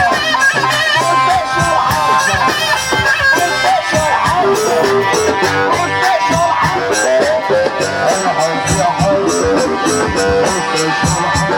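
Loud Egyptian wedding party music: a wavering lead melody over a steady drum beat.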